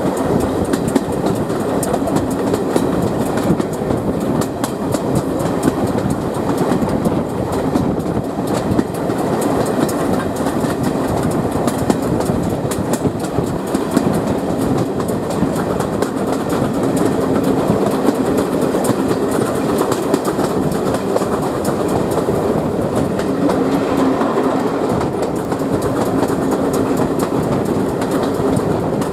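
Passenger coaches of a steam-hauled train running at speed, heard from an open carriage window: a steady rumble and rush of air, with the wheels clicking over the rail joints.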